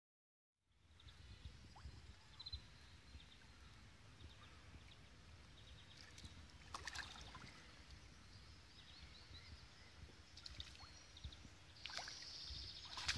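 After a moment of silence, faint waterside ambience with a low wind rumble, broken by a few short soft splashes as small common carp feed at the surface, and a louder splash near the end as the water swirls.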